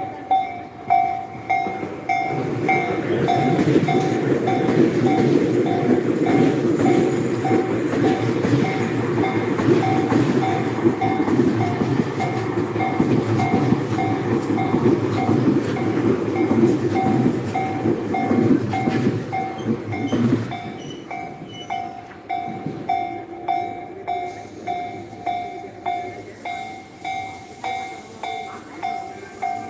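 Japanese level crossing's warning bell ringing in steady, evenly spaced strokes while a train runs past with a rumble and clatter of wheels on rails; the train has gone by about twenty seconds in and the bell keeps ringing on its own.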